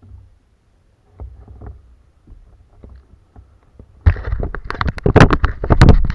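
Handling noise on a kayak: faint scattered knocks, then from about four seconds in a loud, dense clatter of knocks and rustling with a low rumble as a caught fish is lifted on a metal lip grip.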